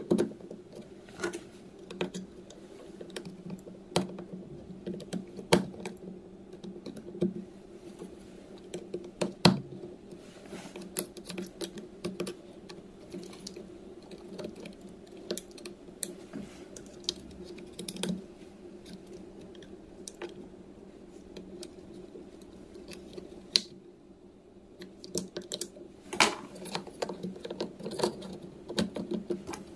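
Irregular clicks and light taps, like small parts and hand tools being handled on a workbench, with a louder flurry near the end, over a faint steady hum.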